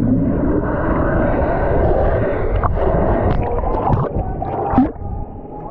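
Rushing, churning water of water-park river rapids washing around the rider and the camera.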